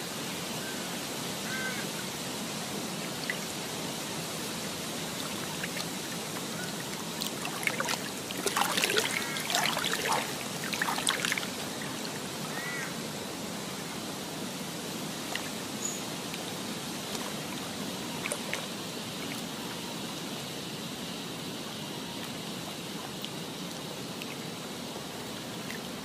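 Steady ambience of running water with birds calling now and then, a cluster of louder calls about eight to eleven seconds in.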